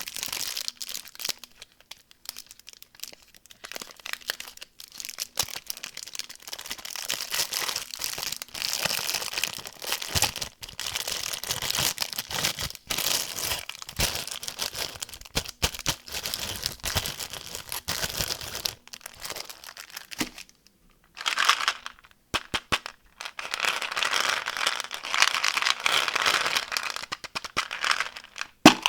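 Candy wrappers crinkling and tearing as candies are unwrapped, an irregular run of crackles and rustles with a short pause about two-thirds of the way through.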